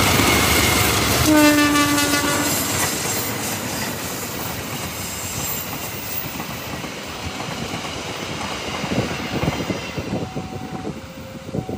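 A diesel-hauled passenger train passes close by. The locomotive sounds one horn blast of just over a second, about a second in. The coaches then rumble past, with the wheels clattering over the rail joints and the sound easing off as the train goes by.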